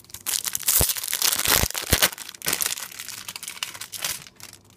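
Foil trading-card booster pack (Panini Adrenalyn XL Euro 2016) crinkling loudly in the hands as it is torn open, a dense crackle with a few sharper snaps, dying away about four seconds in.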